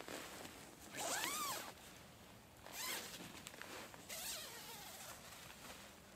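Zip on the mesh bug-net inner door of a Pomoly tipi tent pulled in three strokes. The first is the longest and loudest, and each rises and falls in pitch as it runs.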